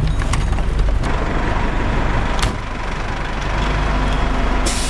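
Fire engine running with a steady low rumble, with a few sharp clicks and a sudden hiss near the end.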